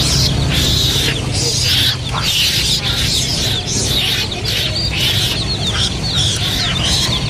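A flock of domestic chicks peeping non-stop, many short, high, falling cheeps overlapping, over a steady low hum.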